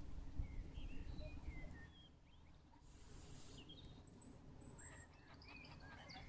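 Faint birdsong in the open: scattered short chirps and whistled calls. A low rumble on the microphone stops about two seconds in.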